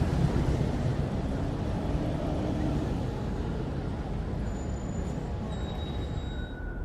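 City street ambience: a steady low rumble of road traffic, with faint thin high tones over it. The background changes shortly before the end.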